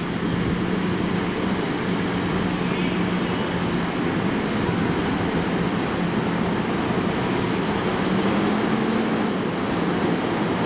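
Diesel engine of a Scania city bus running as the bus rolls slowly forward, a steady drone that rises slightly in pitch about eight seconds in.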